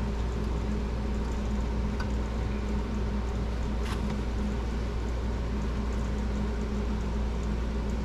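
Steady mechanical hum with a couple of faint light clicks.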